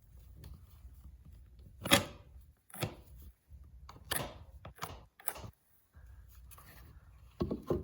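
Handling noise against the wall: about six short, separate scraping strokes, spaced roughly a second apart, with faint low rumble between them.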